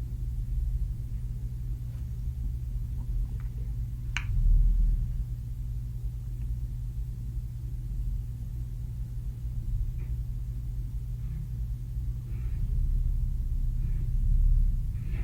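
CNC box-and-pan folding machine running through its clamp-and-bend cycles: a steady low hum from its drive, swelling twice as the clamp and bending leaf move, with a few light metal clicks and one sharp clink about four seconds in.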